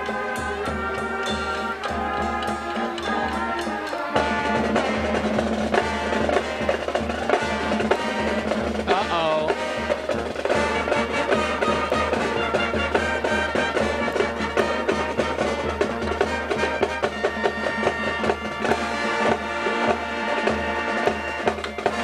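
Marching band playing, with a brass melody over a drumline's fast snare and drum pattern; the band gets louder and the percussion busier from about four seconds in.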